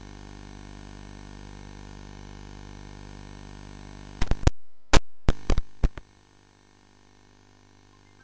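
Steady electrical hum and hiss with a thin high whine, broken about four seconds in by a string of sharp digital clicks and a brief dropout to silence, after which a quieter steady hiss continues: editing glitches at a splice in the audio track.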